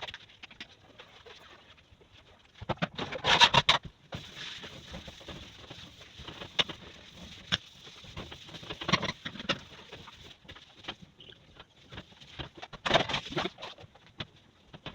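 Household cleaning sounds: irregular knocks and clicks, with a louder rustling burst about three seconds in and another near the end.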